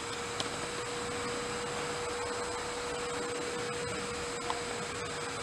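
Steady background noise with a steady mid-pitched hum, and a couple of faint clicks.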